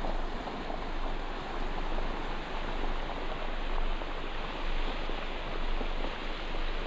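Rain-swollen floodwater rushing steadily.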